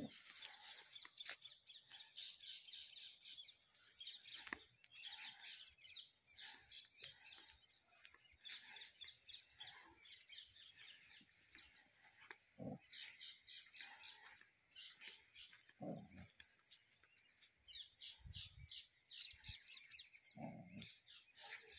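Faint chorus of small birds chirping and twittering without a break, with a few short, low sounds in between.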